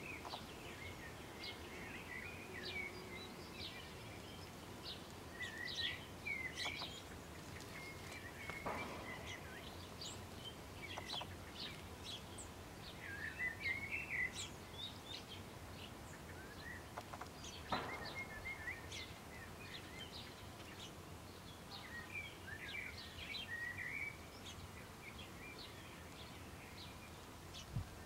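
House sparrows chirping: a steady run of short, high chirps, typical of a fledgling begging from its parent. Two brief, louder rushing noises come about 9 and 18 seconds in.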